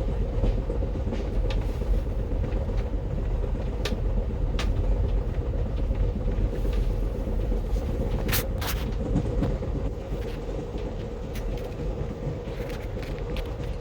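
Amtrak Empire Builder passenger train running on the rails: a steady low rumble and hum, with scattered sharp clicks and knocks, two close together about eight and a half seconds in.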